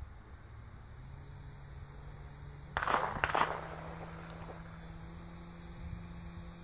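Electric motor and propeller of a 1/8-scale Blériot XI model airplane running up at low throttle. A steady high-pitched whine sounds over a low propeller hum that rises slowly in pitch, with a few sharp clicks about three seconds in.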